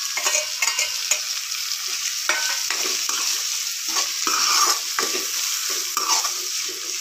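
Chopped tomatoes sizzling in hot oil in a metal kadai, with a metal spoon scraping and stirring the pan in quick, irregular strokes.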